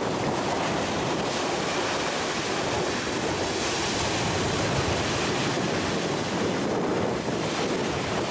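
Waves from a choppy sea breaking and washing up a pebble beach, with wind on the microphone. The hiss of the wash is loudest about halfway through.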